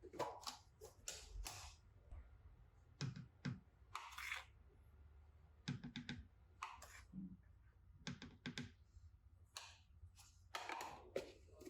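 Faint, irregular light clicks, taps and rustles of household objects being handled, over a low steady room hum.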